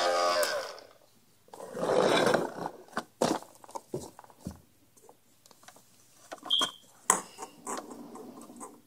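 Hard plastic toy garbage truck and cardboard box being handled: scattered clicks and knocks as the front-loader forks work the box, with a short rushing noise about two seconds in. A steady buzzing tone fades out in the first half-second, and a brief high beep comes near the end.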